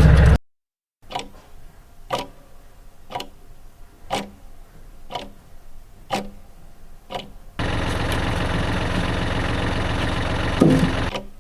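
Clock ticking evenly about once a second. About two-thirds of the way through, a steady rushing noise, like a running motor, joins it and stops just before the end.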